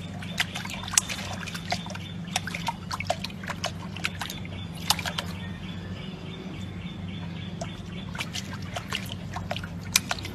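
A puppy pawing and splashing at the water in a stone lily basin: many small irregular splashes and drips over a steady low hum.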